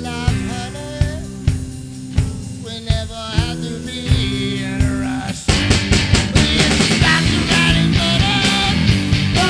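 A band's song playing, with a drum kit keeping a steady beat of about two hits a second under sustained, wavering pitched lines. About five and a half seconds in, the music gets louder and fuller.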